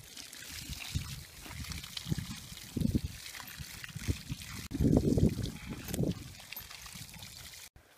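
Water from a garden hose running and splashing onto a horse's lower leg and the grass beneath, with a few low thumps of handling noise, the loudest about three and five seconds in.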